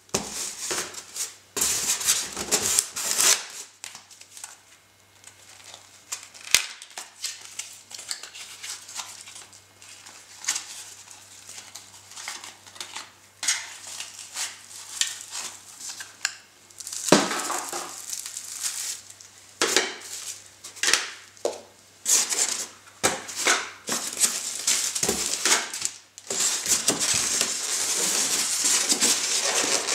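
Packaging being handled during an unboxing: a polystyrene foam box and plastic wrapping rubbing, crinkling and knocking as parts are lifted out, in irregular clicks and rustles. The crinkling becomes steadier and denser in the last few seconds.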